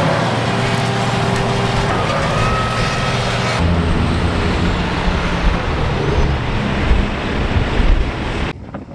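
Fire trucks' engines running with a steady low hum. The sound changes abruptly about three and a half seconds in and drops sharply just before the end.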